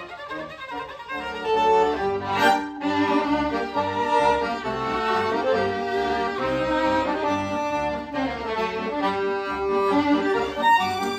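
Violin and accordion duo playing a piece together live, the bowed violin notes to the fore over the accordion.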